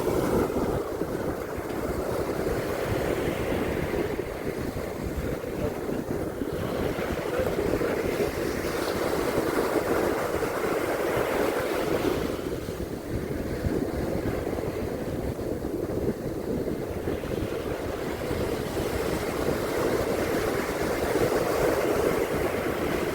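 Sea surf washing on a beach: a continuous rushing wash that swells and ebbs every several seconds as waves come in and draw back.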